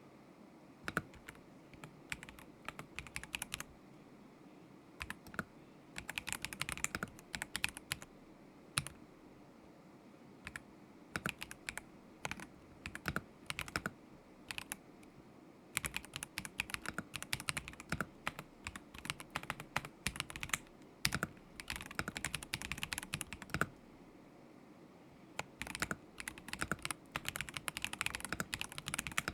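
Typing on a KZZI K75 Pro mechanical keyboard with Moment linear switches: fast runs of key clicks in bursts of a few seconds, broken by short pauses.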